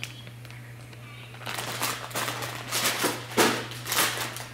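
Grocery packaging being handled and rustling, several irregular rustles starting about a second and a half in.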